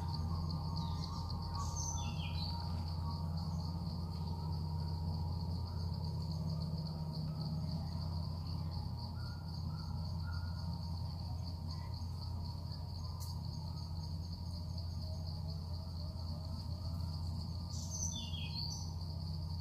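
Steady, high-pitched insect drone in forest, unbroken throughout, over a low steady hum. A few short bird chirps come about two seconds in and again near the end.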